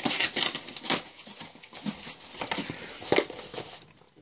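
A cardboard shipping box being handled and opened by hand: irregular scratchy rustling with light taps, louder scrapes about a second in and again about three seconds in, dying down near the end.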